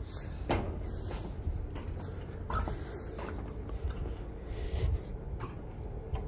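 Wind buffeting the microphone with an uneven low rumble, a faint steady hum underneath, and a few short knocks scattered through.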